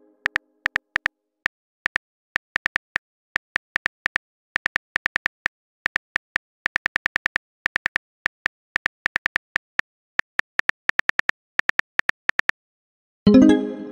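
Simulated phone-keyboard typing clicks, several a second in uneven runs with short pauses, then a short pitched message chime near the end as a new message pops up.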